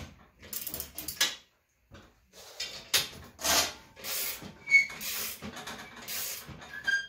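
Thin stainless steel sheet being fed through a hand-cranked three-roll slip roller and handled on it: irregular scraping, rubbing and knocking of the sheet metal, with a couple of brief high metallic rings in the second half.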